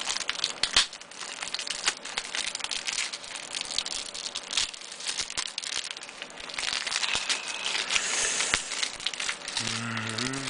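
Plastic packaging on a box of floppy disks crinkling and crackling as it is handled and opened, with many small, irregular snaps and rustles.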